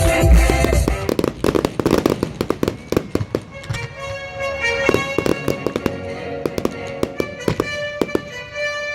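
Fireworks crackling and popping in many quick, sharp reports, densest in the first few seconds and thinning out toward the end, over the show's soundtrack music with held notes.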